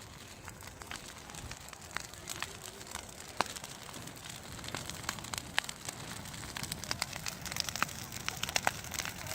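Large wood bonfire crackling and popping over a steady low rush of flame. The sharp pops come more often in the second half.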